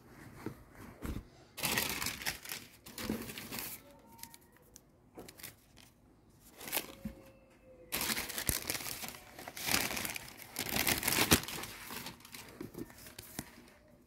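Packing tissue paper crinkling and rustling as it is handled in a pair of new sneakers, in two spells: about two seconds in and again from about eight seconds in.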